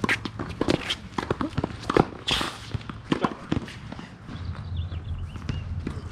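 Tennis players' footsteps and shoe scuffs on the court, with many sharp knocks; the loudest knock comes about two seconds in, followed by a brief scrape.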